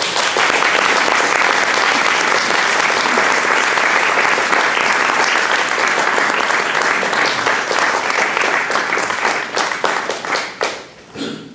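Audience applauding: a loud, dense run of handclaps that starts at once and thins out near the end.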